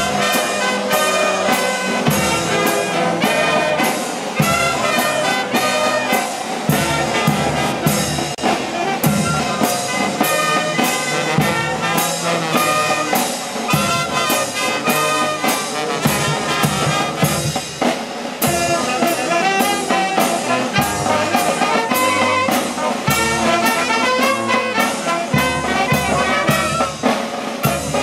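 Peruvian brass band playing: trumpets and trombones carry the melody over a sousaphone bass line and a steady beat of bass drum and snare drums.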